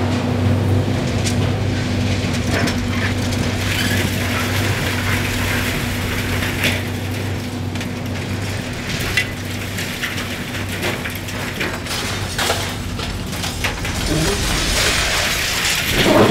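Demolition excavator's diesel engine running while its hydraulic demolition attachment crushes reinforced concrete, with scattered cracks and debris clattering down. The engine hum fades about halfway through while the crunching goes on.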